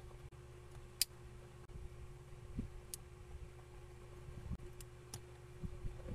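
Hard plastic parts of a knock-off Lego big-figure clicking and knocking together as they are handled and an arm is pressed onto the torso's shoulder pin: a few short sharp clicks, the sharpest about a second in, among soft knocks, over a faint steady hum.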